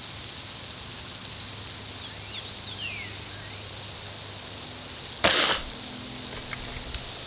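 A short, sharp burst of breath noise close to the microphone about five seconds in, the loudest sound. Before it, faint high bird chirps, some gliding downward, over a steady outdoor hiss.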